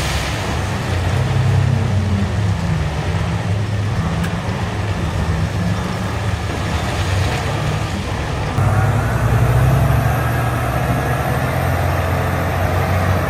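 Heavy diesel engines of mining machinery running, a steady low drone. The sound changes abruptly about eight and a half seconds in.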